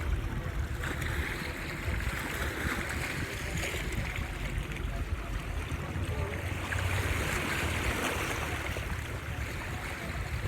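Sea waves washing against the shore, swelling and fading twice, over a low rumble of wind on the microphone.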